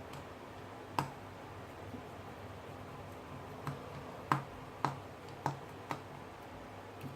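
About seven sharp, irregular clicks and taps from small tools and parts being handled during a smartphone screen repair, the loudest a little past four seconds in, over a low steady hum.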